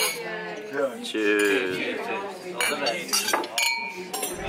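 Wine glasses clinking together in a toast, one clink ringing on with a steady tone about three and a half seconds in, over the clatter of cutlery and dishes and the chatter of diners.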